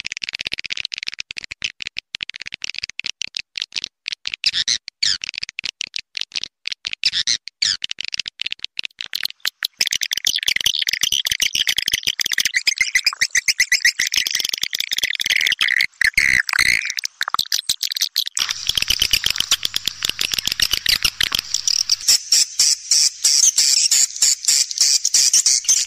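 A flock of swiftlets twittering in dense, rapid chirps, growing thicker and louder about ten seconds in. This is a swiftlet call recording, the kind played to lure swiftlets into a nesting house.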